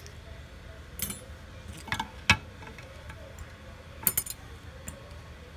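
Small hand tools clicking and tapping against phone parts and the work surface during a phone teardown. There are a few sharp ticks, the loudest around two seconds in, and a quick cluster of clinks about four seconds in.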